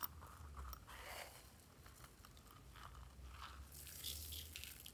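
Pink sequins and glitter spilling from a zippered coin purse and rubbed between fingers over slime: a faint, scattered crinkly rustle, brightest and most crackly near the end.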